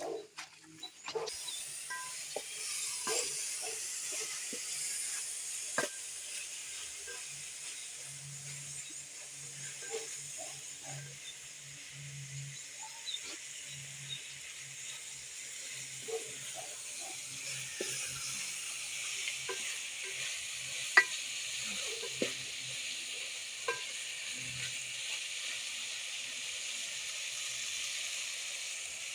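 Food sizzling as it fries in a pan, a steady hiss broken by scattered clicks of a utensil stirring and scraping, one sharper knock about three-quarters of the way through.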